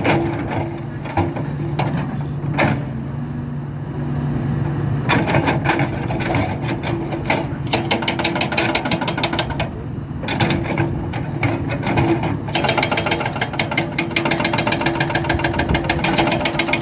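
Hydraulic breaker on a Hidromek 300LC excavator hammering in rapid blows from about five seconds in, stopping briefly twice, over the excavator's engine running steadily. Before the hammering starts there are only a few single knocks.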